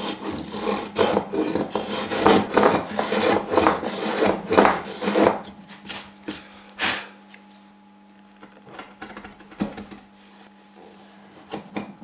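Hand router plane cutting a groove in soft wood with quick, rasping back-and-forth strokes for about five seconds. Then comes one more stroke and a few faint scrapes. A steady low hum runs underneath.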